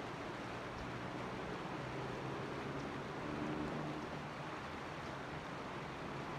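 Steady rush of flowing creek water, with a faint low hum that swells slightly near the middle.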